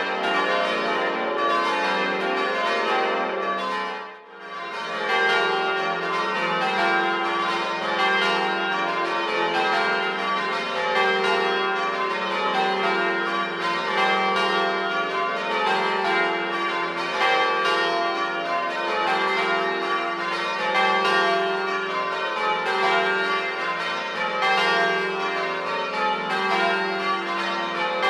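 Ring of eight 1954 Gillett & Johnston church bells, rung full circle and struck one after another in quick succession, with a brief drop in level about four seconds in.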